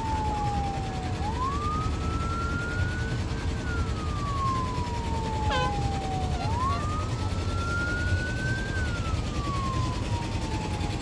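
Motor-driven siren wailing: a single tone winds up quickly, then coasts down slowly over about three seconds, and repeats roughly every five seconds. Wind and water noise runs underneath, and a brief sharp click comes about halfway through.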